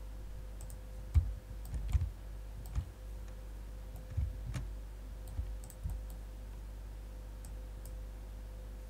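Computer mouse clicks and handling, a scattered handful of short clicks, some with a dull thump, in the first six seconds, over a steady low electrical hum.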